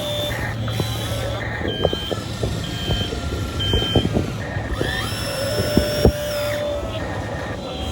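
Radio-controlled model excavator working: a steady low hum of its drive under scattered knocks and clicks, with three short high beeps about a second apart in the first half and a rising whine that settles into a steady tone about five seconds in.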